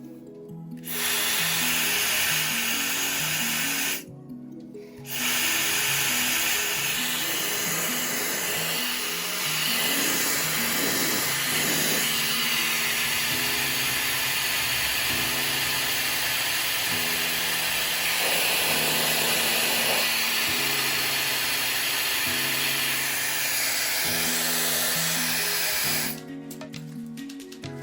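Laifen Mini hair dryer running: a loud steady rush of air with a high steady motor whine, cut off for about a second near the start and switched off near the end, over background music.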